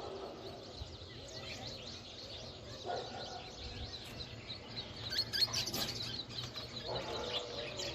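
Birds chirping: many short, quick chirps throughout, busiest about two-thirds of the way in.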